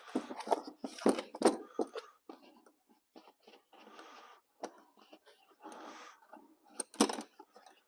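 Metal ratcheting combination wrenches being handled, clinking and clicking against one another, with a couple of short stretches of rustling in between. The densest clinking is in the first two seconds, with one sharp clink near the end.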